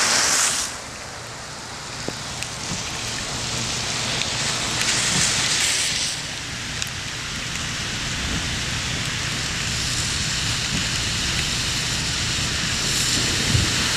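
Rain falling steadily on a flooded street. It opens with the loud spray of a vehicle's tyres ploughing through deep standing water, which drops away under a second in; a swell of water hiss comes around the middle, and a car's tyres hissing on the wet road rise near the end.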